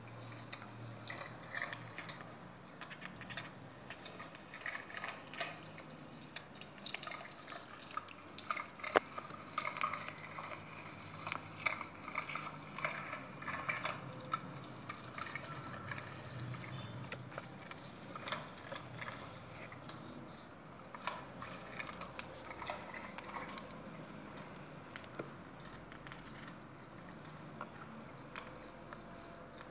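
Slime squelching and crackling as it is squashed under a toy truck's plastic wheel: many small, irregular wet pops and clicks.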